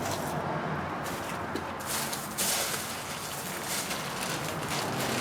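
Handling noises from someone working with cabinet parts and packing: rustling and scraping with a few light knocks.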